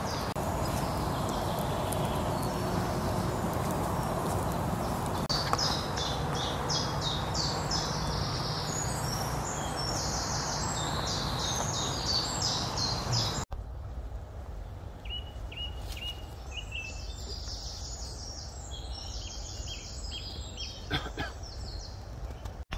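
Woodland songbirds singing in the early-morning dawn chorus, with repeated high phrases over a steady background hiss. About halfway through the hiss drops away suddenly and the birdsong carries on more clearly.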